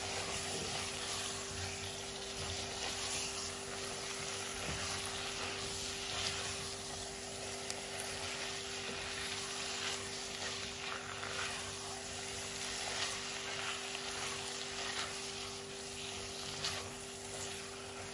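Spaghetti and tomato-meat sauce sizzling in a nonstick pot over a gas flame while being stirred and tossed with a silicone spatula, with small irregular scraping and stirring sounds. A steady low hum runs underneath.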